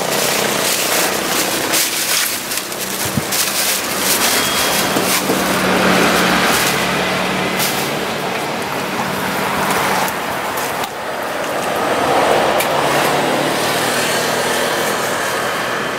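Steady noise of road traffic, with vehicles passing and swelling louder about six and twelve seconds in, and a low engine hum in between. A few sharp knocks stand out over it.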